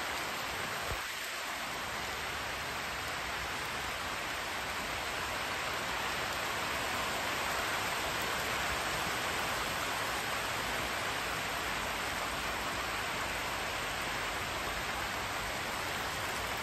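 Steady rain falling on tropical foliage and a concrete driveway: a constant, even hiss.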